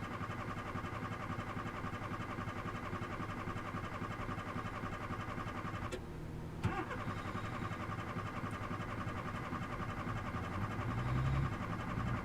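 A car's starter cranking the engine over and over without it catching: the car won't start. The cranking stops for a moment about six seconds in, resumes with a click, and grows briefly louder near the end.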